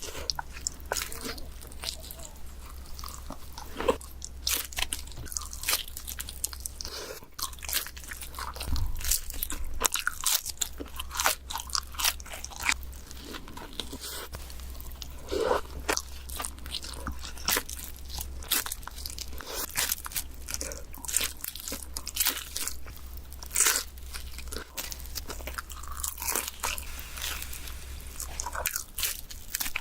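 Close-miked ASMR eating of pizza: bite after bite of crunching crust, with chewing between the sharp crunches. A low steady hum sits underneath.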